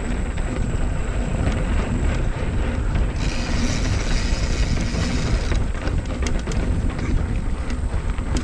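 Mountain bike rolling over a dirt trail: steady rumble of wind and tyres on the microphone, with the bike rattling and clicking over the ground and a brighter hiss for a couple of seconds in the middle.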